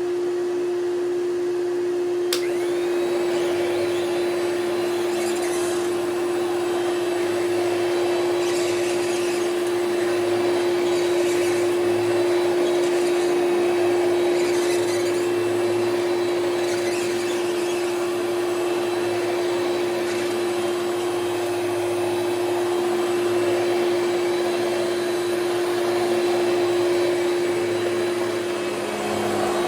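Hoover Celebrity QS canister vacuum running on high speed: a steady motor whine over rushing air, with a single click about two seconds in. Its top motor bushing has had only a little lubrication as a stopgap and still needs the motor dismantled for proper maintenance.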